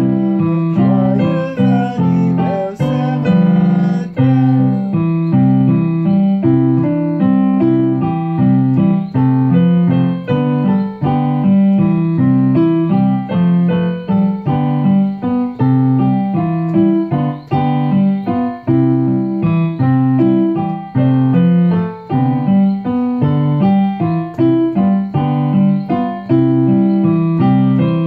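Electronic keyboard playing a melody over held chords, a steady stream of notes with no pauses.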